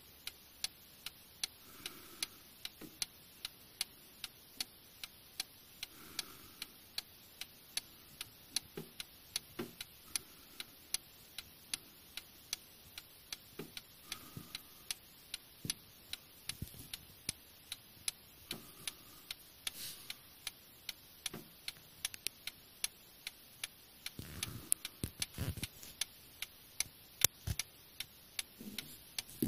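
Antique French Paris clock movement by Vincenti, with a front-mounted escapement, ticking steadily and evenly as its pendulum swings: the clock running without trouble. A few soft bumps come in near the end.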